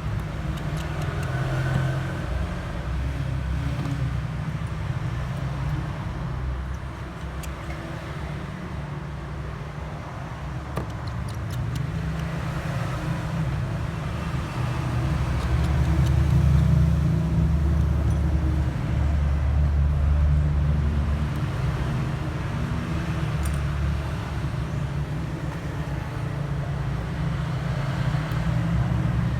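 Low rumble of road traffic, swelling louder for several seconds around the middle, with a few faint clicks.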